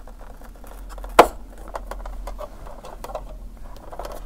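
Hands handling an ASUS UX303LA laptop's display lid and its parts: light scraping and rustling of the casing, with a few small ticks and one sharp click about a second in.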